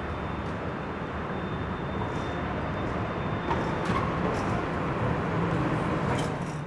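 City street ambience: a steady rumble of traffic, with a few light clicks and knocks in the second half.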